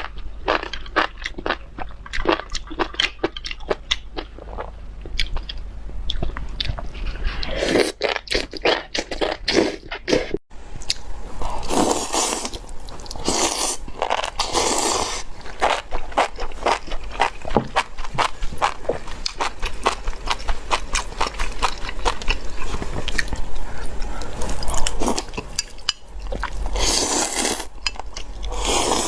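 A mouth chewing spicy enoki mushrooms: a dense run of quick, crunchy clicks, with a few louder noisy surges now and then.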